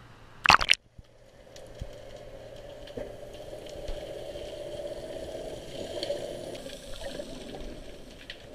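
A brief loud splash about half a second in as the camera goes under the sea surface, then the muffled, steady hiss and rumble of seawater heard from underwater through the camera housing.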